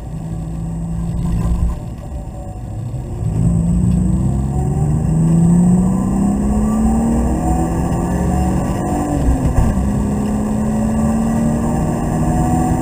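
BMW Z3 Coupé's straight-six engine heard from inside the cabin, driven hard: the note eases off briefly about two seconds in, then climbs steadily under full throttle, drops sharply with an upshift around nine and a half seconds and pulls on, over steady road rumble.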